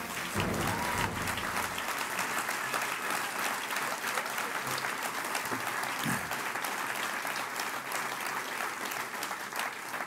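A large audience applauding steadily, with the tail of a music track fading out in the first couple of seconds.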